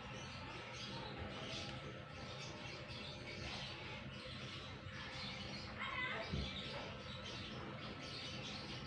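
Faint birds chirping in the background, with a brief louder sound and a soft thump about six seconds in.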